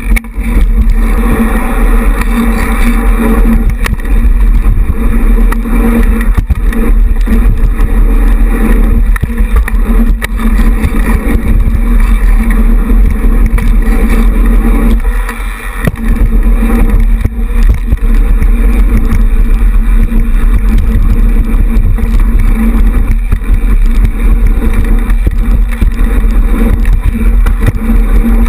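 Wind buffeting the microphone of a camera worn by a moving BMX rider, mixed with the rumble of bike tyres rolling on the paved track. Loud and steady, with a brief dip about halfway through.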